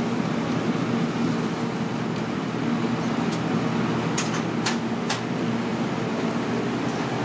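Steady background hum and rumble of machinery and surroundings, with a few light clicks a little past the middle.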